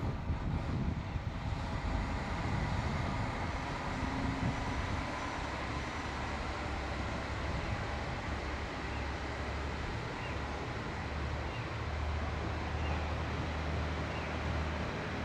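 Kashima Rinkai Railway 6000-series diesel railcar pulling away from the station, its diesel engine running under power. A steady low drone firms up about five seconds in over the general running noise of the train.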